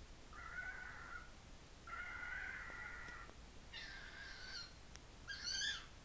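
Cockatiel screaming: four calls in a row, the second the longest, the last two higher-pitched and the final one short.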